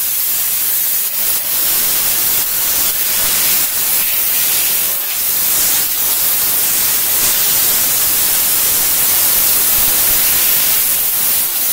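Loud, steady hiss of high-pressure steam jetting from the gun nozzle of a VaporChief 125 steam cleaner running at 125 PSI.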